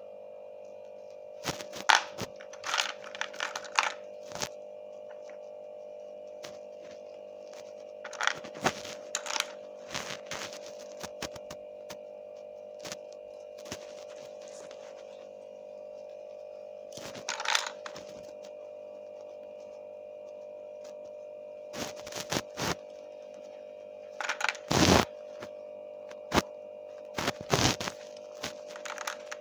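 Small plastic toys clicking and clacking against each other and a tabletop as they are handled and set down, in scattered clusters of sharp knocks, with the loudest knock near the end. A steady high hum runs under it throughout.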